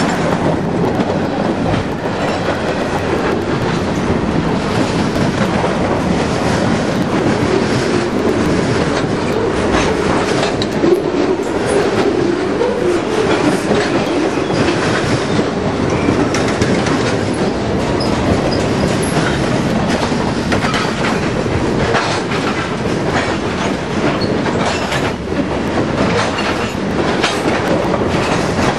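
Freight train cars rolling past close by over a short steel bridge: a steady rumble of wheels on rail, with irregular clacks as the wheels cross the rail joints.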